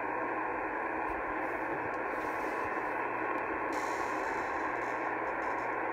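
Superstar 2000 CB radio's speaker hissing with steady, muffled receiver static over a faint low hum: the open channel between transmissions while working long-distance skip.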